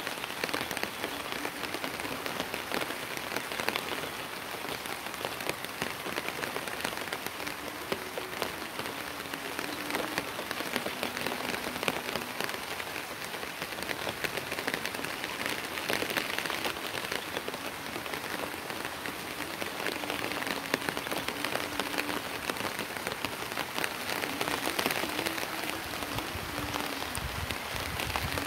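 Steady rain falling on a rooftop: an even hiss of many fine drops, unchanging throughout.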